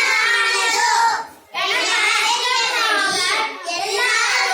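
Children's voices singing in phrases, with a short break about a second and a half in and another about three seconds in.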